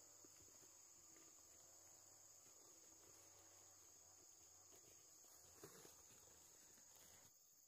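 Near silence with faint, steady high-pitched insect chirring and one light knock about two thirds of the way through.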